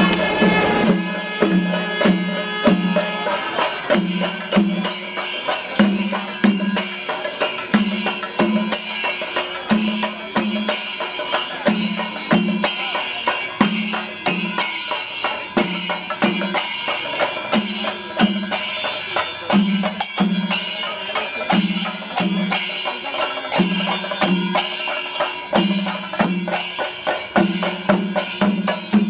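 Kerala temple percussion ensemble playing: a dense clatter of hand cymbals (ilathalam) over drum strokes on chenda, with a low stroke about twice a second keeping a steady beat.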